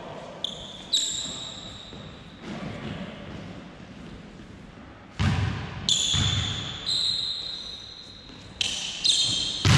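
A volleyball being struck and bouncing in a gym: several sharp thuds with hall echo, loudest about five seconds in and again near the end. A high steady tone comes and goes in between.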